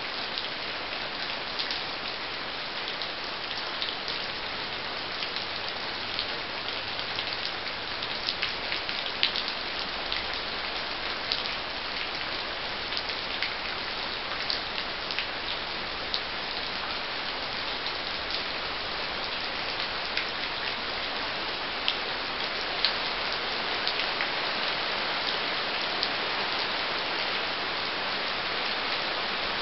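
Steady rain falling, an even hiss with scattered sharp ticks and pops of drops throughout.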